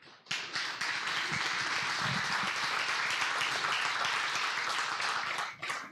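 Congregation applauding: steady clapping starts about a third of a second in, holds and dies away near the end.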